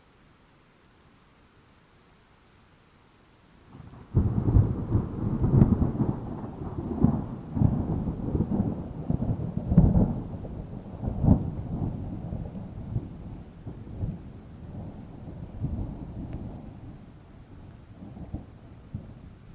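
A sudden loud thunderclap about four seconds in, followed by a long rumble with sharp cracks and repeated surges that slowly die away. Faint rain hiss underneath throughout.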